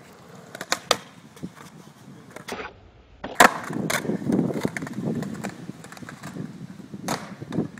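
Skateboard wheels rumbling over rough stamped concrete, with sharp clacks of the board hitting the ground; the loudest clack comes about halfway through and another near the end.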